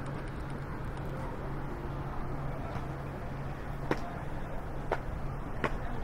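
City street ambience: a steady low hum and background noise, with three sharp clicks in the second half.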